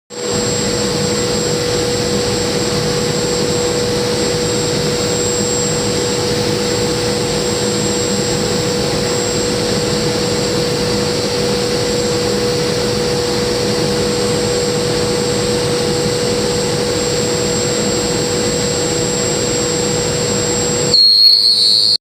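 Milltronics CNC mill running, a steady whine and hum as a 1/2-inch end mill dry-cuts A2 tool steel. Near the end it briefly gets louder with a high screech, then cuts off suddenly.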